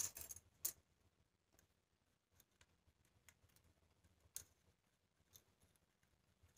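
Loose jingle shells clicking against each other and the tabletop as a hand picks through them: a quick cluster of clicks at the start, then faint scattered ticks about once a second.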